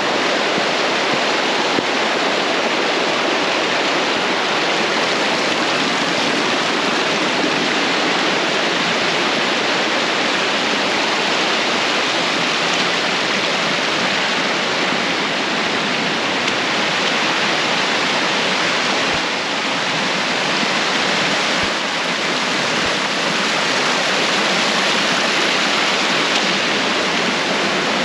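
Uracher Wasserfall in high flow: a steady, unbroken rush of falling and running water.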